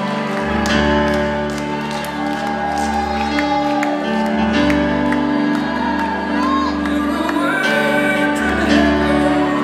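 Live music: a man singing into a microphone over sustained chords and a low bass line.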